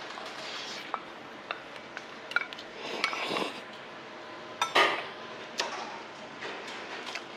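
Metal spoon and chopsticks clinking against stainless steel bowls and side dishes as someone eats: a few separate sharp clinks, then busier clattering around three seconds and again just before five seconds in, where it is loudest.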